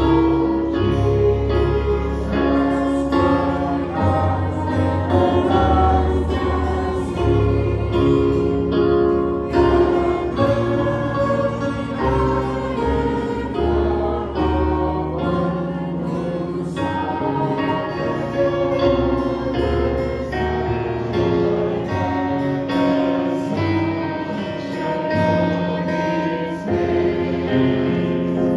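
A choir singing a hymn with instrumental accompaniment, with held notes running on without a break.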